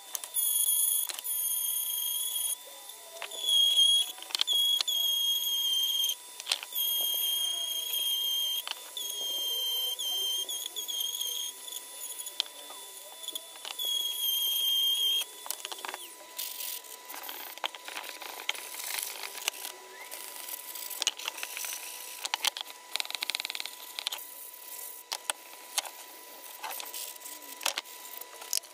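High-pitched whine of a small handheld rotary tool running in several short runs for about fifteen seconds, then cutting off. After that comes scraping, rubbing and clicking of hands and tools on the wooden box.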